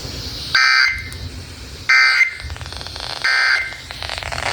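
Emergency Alert System end-of-message signal: three short, shrill bursts of SAME digital data tones, a little over a second apart, over a low hum from the radio broadcast. They mark the end of a severe thunderstorm warning message.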